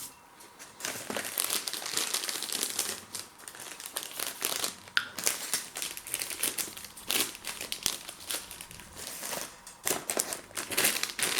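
Crisp packet crinkling and rustling as it is handled, in irregular bursts of crackle.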